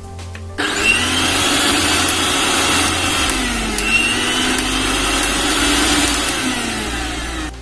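Electric mixer grinder motor running at full speed, starting suddenly and cutting off after about seven seconds; its pitch sags briefly midway, then recovers.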